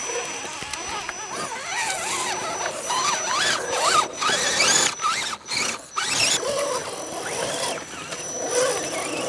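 Electric motors and geared drivetrains of radio-controlled scale rock crawlers whining as they crawl, the pitch swooping up and down in quick short swells with the throttle.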